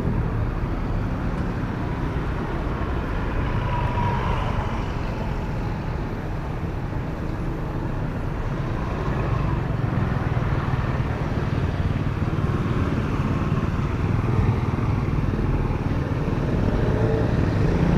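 Steady street traffic: motorcycles and cars running past close by, a continuous mix of small-engine hum and tyre noise.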